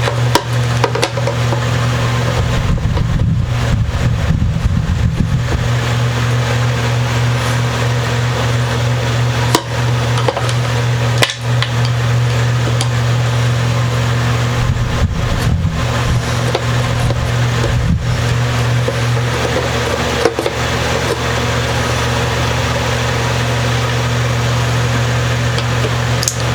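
A steady low hum, with a few light clicks and knocks from the mandolin being handled.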